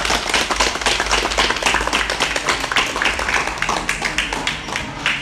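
A group of young novice monks clapping their hands in applause, dense and loud, thinning to a few separate claps near the end.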